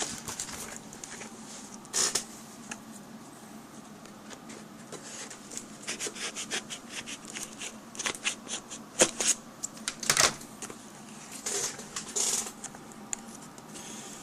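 Scissors snipping and packaging crackling as a retail box is cut open: irregular clicks and rustles, busier in the second half, with a few louder crackles.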